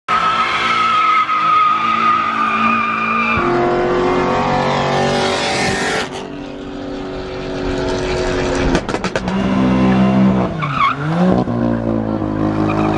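BMW M cars revving hard and tires squealing through burnouts, the sound cutting abruptly from one car to another every few seconds. A long tire squeal opens it, and near the end an engine's revs drop and climb again.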